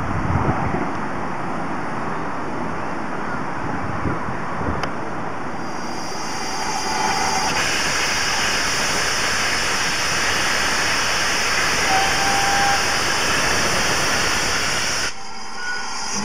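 Steam tank locomotive hissing steam, the hiss growing stronger from about six seconds in as steam billows around the engine. Wind buffets the microphone.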